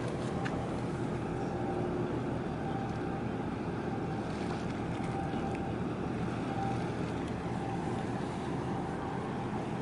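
Steady low drone of ship and boat engines, with wind and water wash.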